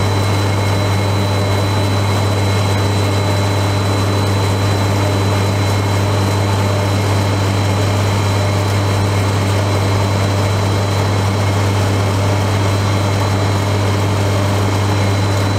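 Countertop soft-serve ice cream machine running while soft serve is dispensed into a cone: a steady low electric hum from its motor and refrigeration compressor, with a faint high whine.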